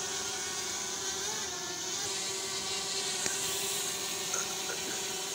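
Small quadcopter drone hovering close overhead, its propellers giving a steady high-pitched whine that wavers slightly in pitch.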